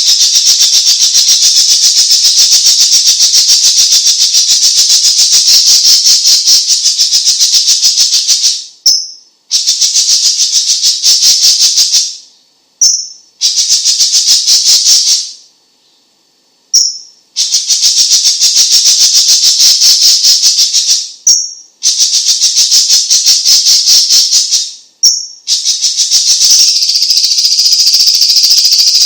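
A songbird sold as cucak ijo cina (cucak cungkok) chattering gacor: long, fast, high rattling trills in bouts of several seconds. The bouts are broken by brief pauses, with a silence of about a second midway.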